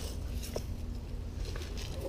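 Quiet handling of tools: a few faint clicks and rustles as a hammer and punch are picked up.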